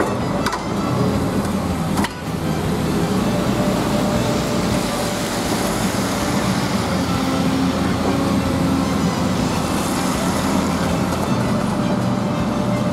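Diesel engine of a high-reach demolition excavator running steadily as it works, with a couple of sharp knocks in the first two seconds. A road vehicle passes close by partway through.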